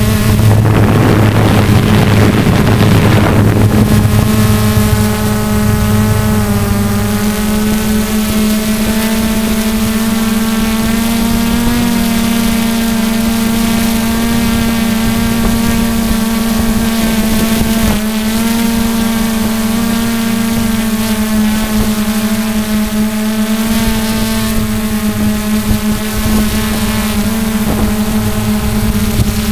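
RC hexacopter's electric motors and propellers buzzing steadily in flight, heard up close from the craft itself, the pitch shifting slightly now and then. A rushing noise lies over the buzz for the first few seconds.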